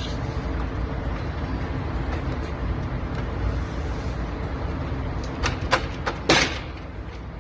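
Steady low rumble in the background, with a few sharp clicks and a brief rasping scrape about six seconds in, as plastic grille and bumper-cover parts are worked loose from the truck.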